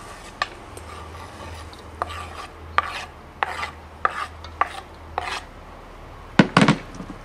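Metal spoon scraping chopped onion off a wooden cutting board into a metal pot: a string of short scrapes and clicks, with a cluster of sharp knocks near the end.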